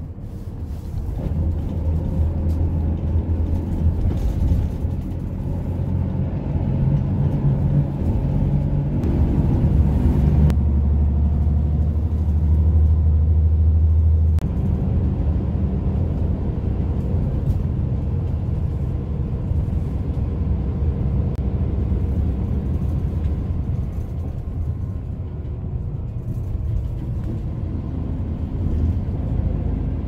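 Engine and road rumble of a moving road vehicle heard from inside the cabin: a low, steady drone whose engine note shifts about nine seconds in and again about fourteen seconds in.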